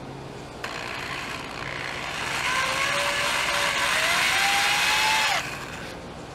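An electric drill with a Phillips bit drives a screw through a steel plant hook's mounting plate into a wooden post. The motor whine climbs in pitch for about three seconds as the screw goes in, then stops suddenly.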